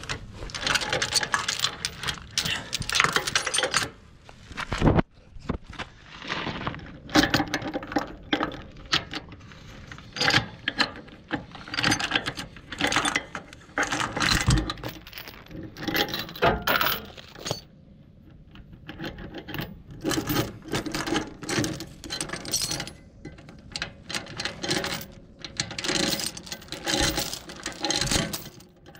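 Heavy steel chain rattling and clinking against the tractor's steel drawbar as it is worked loose and pulled free, in irregular bursts with a couple of heavier clanks.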